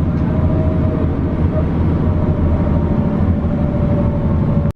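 Bus running at speed, heard from inside the cabin: a steady low engine and road rumble with a faint steady whine. The sound drops out for an instant near the end.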